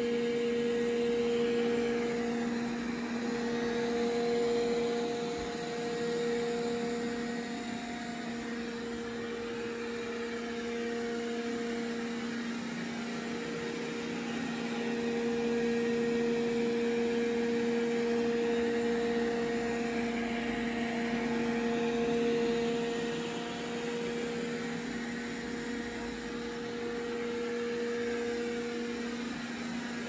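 Roborock S5 robot vacuum running on carpet during a spot clean, on what is believed to be its normal (medium) suction setting: a steady motor hum over a hiss of suction. It grows a little louder and softer every few seconds as it moves back and forth.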